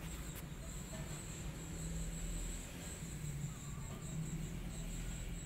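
Steady high-pitched insect chirring, typical of crickets, with a low rumble underneath.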